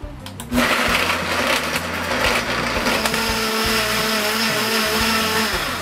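Hamilton Beach professional blender running a smoothie program, blending fruit, almond milk and ice cubes. It starts abruptly about half a second in, with ice chunks clattering against the jug in the first half, then runs at a steady high speed with a motor whine as the mix turns smooth, winding down at the very end.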